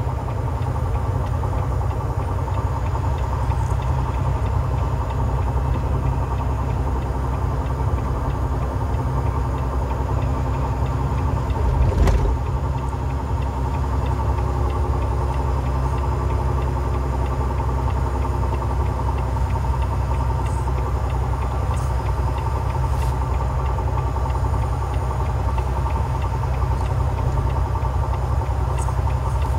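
Semi-truck's diesel engine running steadily, heard from inside the cab as a continuous low drone. A single thump about twelve seconds in.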